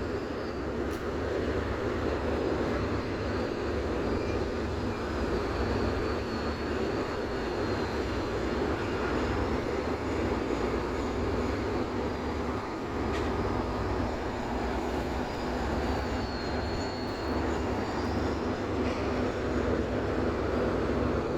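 Steady low rumble of a large car ferry's engines running close by, with a faint high wavering whistle over it.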